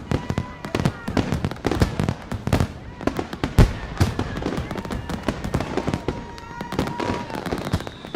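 Fireworks going off in rapid succession: dense crackling and popping with sharper bangs among them, the loudest about three and a half seconds in.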